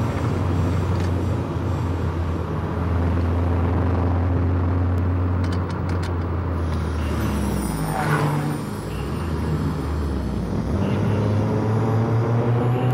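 Car engine running at speed under road and tyre noise. Its note drops away about eight seconds in, then climbs steadily near the end as the car accelerates.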